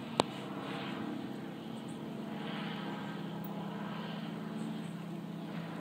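A blimp's propeller engines droning steadily as it passes overhead. There is a single sharp click just after the start.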